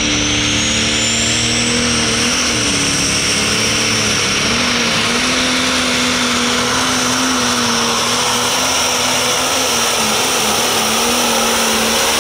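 Pro Stock pulling tractor's turbocharged diesel engine running flat out under load, with a high turbo whine that climbs over the first two seconds and then holds steady.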